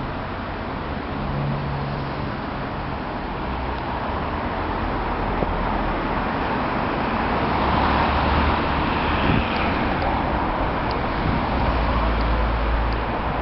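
Tatra T4D-M tram running, a steady rolling and motor noise with a deep rumble that grows louder in the second half.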